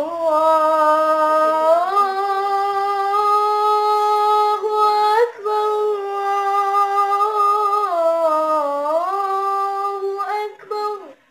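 A boy's voice chanting the adhan, the Islamic call to prayer, in long drawn-out melismatic notes: one held line that steps up in pitch about two seconds in, pauses briefly for breath about five seconds in, then dips and rises again near the end before stopping.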